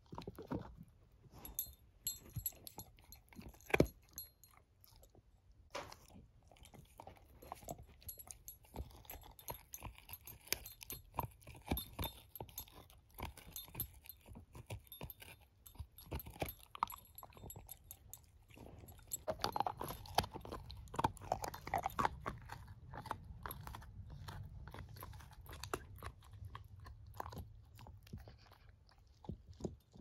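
Shepherd-mix puppy chewing a bone: irregular crunches and clicks of teeth on bone, with one sharp loud crack about four seconds in.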